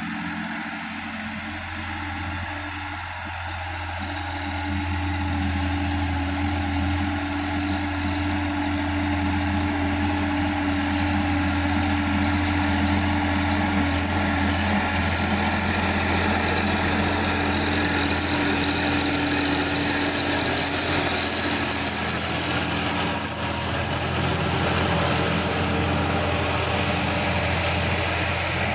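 Sonalika DI-50 RX tractor's diesel engine running steadily while pulling a rotary tiller through the soil. It grows louder over the first few seconds as the tractor comes closer.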